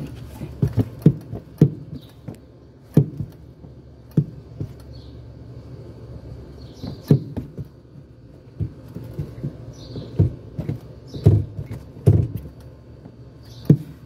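Club Car golf cart accelerator pedal being pressed and let back up by foot, giving about ten irregular knocks and thumps as it moves and meets its stops. The annoying noise from the pedal potentiometer is no longer there after the fix.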